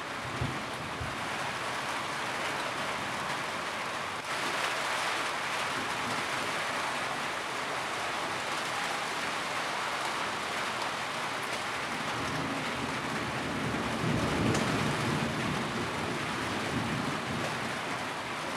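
Steady rain falling on a roof, a dense even hiss that grows heavier about four seconds in. A low rumble rises under it about two-thirds of the way through.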